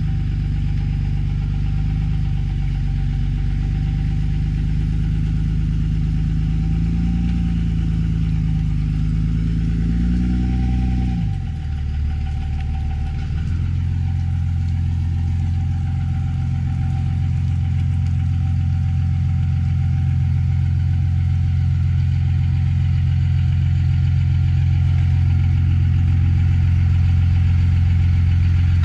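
Pickup truck engine idling steadily. About eleven seconds in the note rises briefly, dips and changes, then holds steady again.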